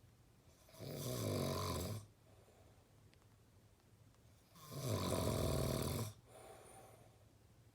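A person snoring: two loud snores about four seconds apart, each lasting over a second, the second followed by a softer breath.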